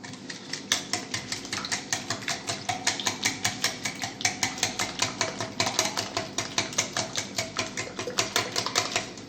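A hand utensil beating a wet batter of eggs, sugar, oil and vanilla in a bowl, clinking against the bowl in a fast, even rhythm of about five strokes a second, mixing until the sugar dissolves.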